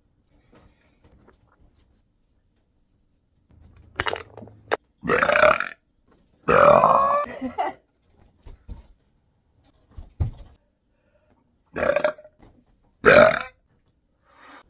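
A woman burping four times: two close together about 5 and 6.5 seconds in, the second long with a sliding pitch, then two shorter ones near the end. A couple of sharp clicks come just before the first burp.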